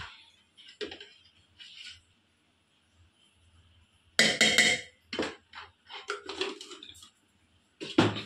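Kitchen handling sounds as plastic spice containers are opened and worked over a pressure cooker: scattered knocks and clinks, the loudest a short clatter about four seconds in.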